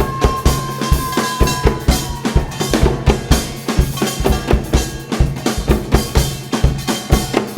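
Live gugak ensemble music driven by fast, steady drumming, several strokes a second, with a long held melodic note that slides slightly downward over the first few seconds.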